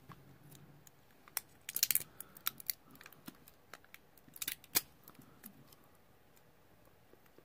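A replacement ink cartridge's plastic bag being handled and opened: scattered short crinkles and clicks, with bunches of them about a second and a half in and again about four and a half seconds in.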